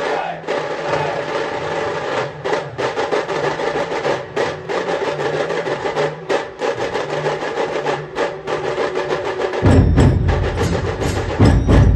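Dhol-tasha drum troupe playing: rapid, sharp tasha strokes in a driving rhythm, joined by loud deep dhol beats about ten seconds in.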